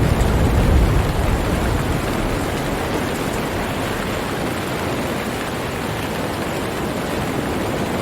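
Steady rain hiss with a low rumble of thunder that dies away over the first two seconds.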